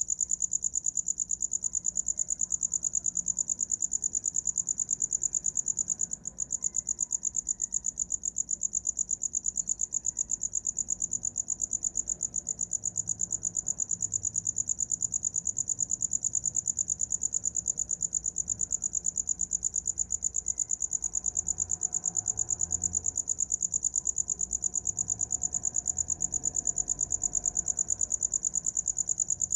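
A cricket singing a continuous, rapid, high-pitched pulsing trill, with a brief break about six seconds in.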